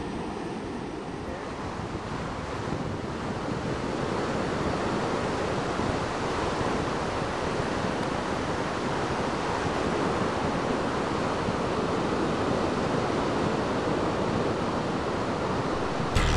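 Ocean surf breaking and washing up the beach: a steady rush of noise that grows louder a few seconds in.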